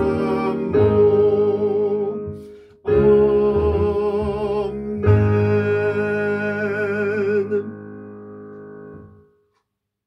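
Closing line of a hymn's doxology verse sung with piano accompaniment, the voices with a clear vibrato. The singing stops about seven and a half seconds in and the last piano chord dies away over the next second and a half.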